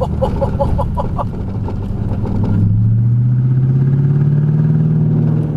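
Lexus LS400's 1UZ V8 engine pulling under acceleration: a lower running note with a quick run of short sounds over the first second, then from about halfway the engine note rises steadily and grows louder, and drops away near the end.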